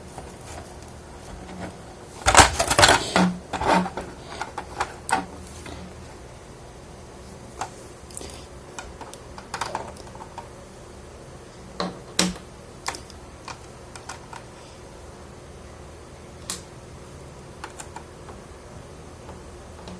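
Small plastic figure parts and packaging being handled: a burst of clicking and rattling about two seconds in, then scattered light clicks and taps.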